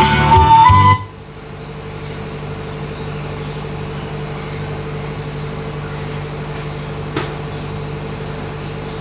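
Flute music from the soundbar stops about a second in. What is left is a steady low hum with a faint hiss, and one small click about seven seconds in.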